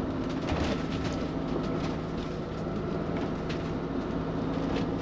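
Motorhome cab noise while driving: a steady engine and road drone, with a few light rattles and clicks from the cab.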